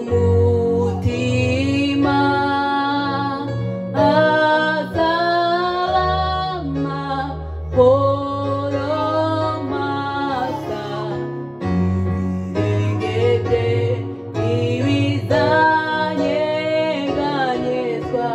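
A woman sings a worship song into a microphone in phrases of a few seconds each, over held chords played on an electronic keyboard.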